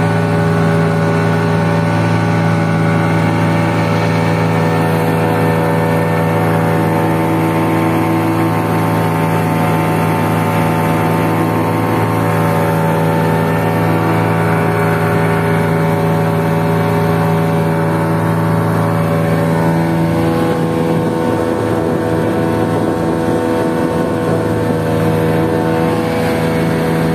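Twin outboard motors, a Yamaha 25 and a 15, running steadily at cruising speed as they drive a small wooden boat across open sea, with water rushing past the hull beneath the drone.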